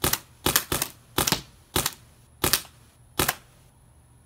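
Paintball gun firing a string of shots, sharp pops coming quickly at first and then further apart, the last about three seconds in.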